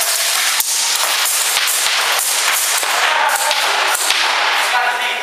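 Airsoft guns firing: a run of sharp, irregularly spaced snapping shots over a dense hiss of noise.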